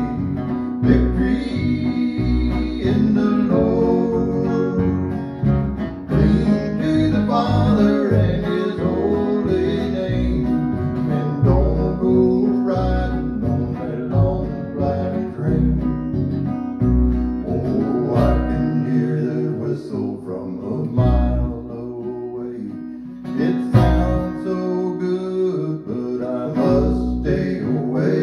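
Country-gospel duo: a strummed acoustic guitar and a plucked upright bass keep a steady beat under a man's singing voice.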